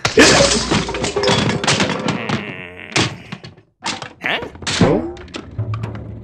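A heavy thunk at the start, followed by a busy run of knocks and crashes from an animated film's sound-effects track, with music underneath.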